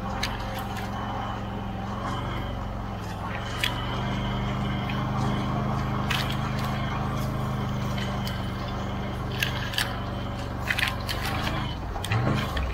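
Can-Am Outlander XMR 650 ATV's V-twin engine running at a steady low speed, with scattered sharp clicks and knocks. It revs up briefly and drops back near the end.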